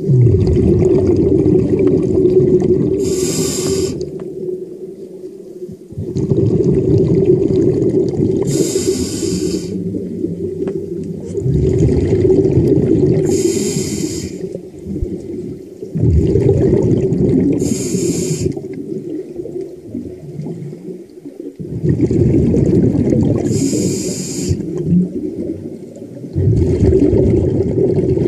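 Scuba diver breathing through a regulator underwater: a short hiss on each inhale and a long rumble of exhaled bubbles, in a slow cycle of about five seconds, six breaths.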